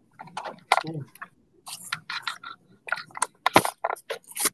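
Irregular clicks and knocks of a laptop and its camera being handled and turned, with a brief muffled voice about a second in.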